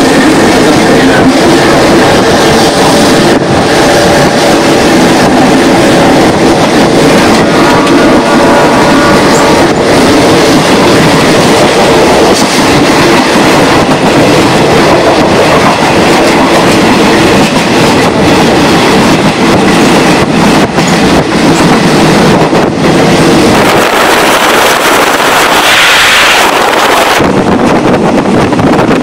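Passenger train running along the track, heard from an open carriage window: a loud, steady rumble and rattle of the wheels with scattered clicks over the rail joints. About four seconds from the end the deep rumble drops away for a few seconds and a brighter hiss comes up.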